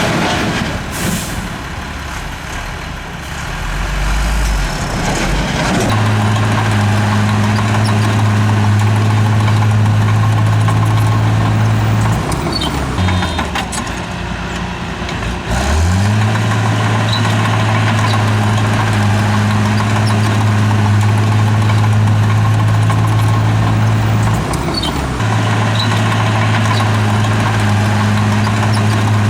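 Heavy diesel engine of earthmoving machinery running hard at a steady, high speed. It drops off and climbs back up about halfway through, and dips briefly again near the end.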